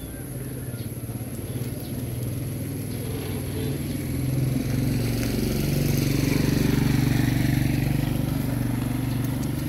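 Small motorcycle engine running at a steady pitch, growing louder through the middle of the stretch as it comes by.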